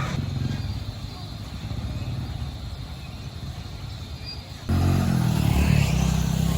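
A motor engine running with a low, steady hum, which gets abruptly louder almost five seconds in.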